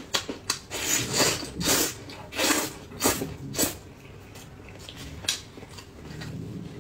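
Close-miked eating sounds: wet chewing, lip smacking and the tearing of a large stewed chicken leg pulled apart by gloved hands. A run of sharp crackly bursts comes in the first four seconds, then it goes quieter.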